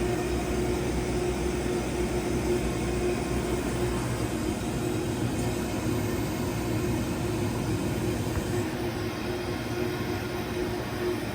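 Makino Duo 43 CNC wire EDM running under power, a steady machine hum and whir with a constant mid-low tone that holds throughout.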